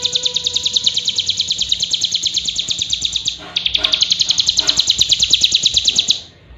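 Bar-winged prinia (ciblek gunung) singing a long, high, rapid trill of evenly repeated notes, with a brief break about three and a half seconds in. The trill stops shortly before the end.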